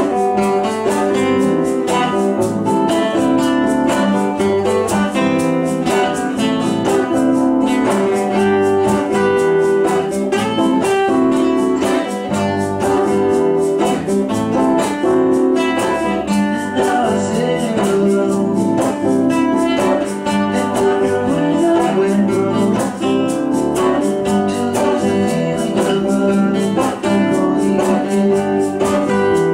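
A band playing a song with guitar.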